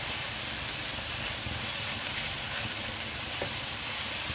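Kangkung (water spinach) sizzling in hot oil in a wok as it is stir-fried and turned with a spatula, a steady hiss.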